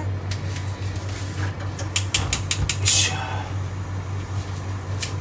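Gas stove burner igniter clicking rapidly, six or seven sharp clicks in under a second, about two seconds in, with a brief hiss as it catches. A steady low hum runs underneath.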